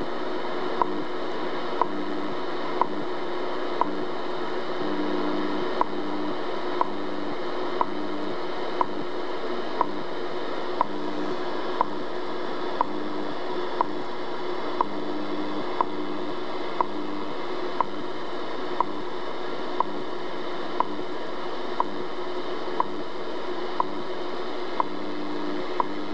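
Shortwave time-signal broadcast from a Realistic DX-66 receiver's speaker: a short tick about once a second over steady static hiss, with a low tone that switches on and off in blocks between the ticks.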